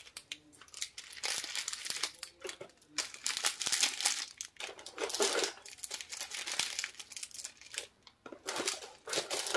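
Clear plastic lollipop wrappers crinkling as hands handle and rearrange a bunch of wrapped rose-shaped lollipops. The crinkling comes in irregular bursts, with a brief pause near the end.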